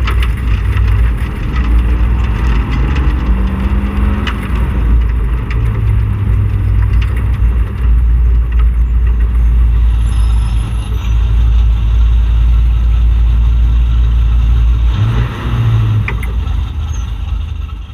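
Street stock Camaro race car's engine rumbling at low speed, heard from the in-car camera, with a brief change in engine note a few seconds before the end.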